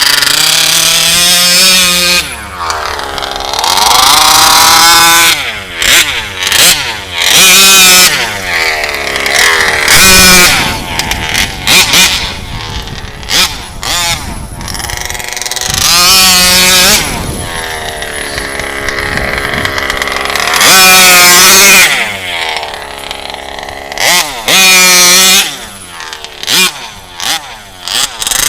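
Two-stroke RCMAX GT90 petrol engine of a 1/5-scale HPI Baja RC car, revving up to full throttle in repeated short bursts and dropping back between them as it is driven off-road.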